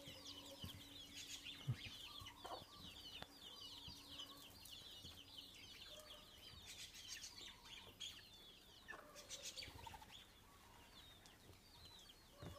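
Faint, continuous peeping of a brood of chicks, many short falling peeps overlapping one another, with an occasional low cluck from the mother hen.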